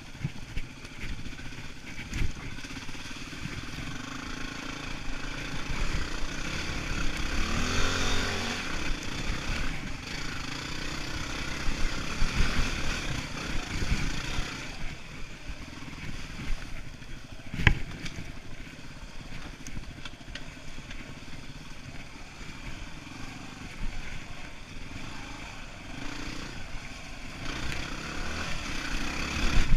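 Yamaha WR250R dual-sport motorcycle's single-cylinder four-stroke engine running on a trail ride, the revs rising and falling with the throttle, most plainly about eight seconds in. A few sharp knocks come from the bike going over bumps in the rough trail.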